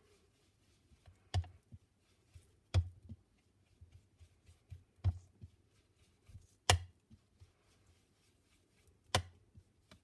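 Light taps on a craft desk as ink is worked onto a card: five sharp taps a second or two apart, with faint small ticks and rubbing between them.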